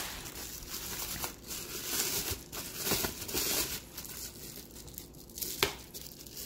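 Bubble wrap crinkling and rustling as hands pull it open, with a few sharp clicks scattered through it.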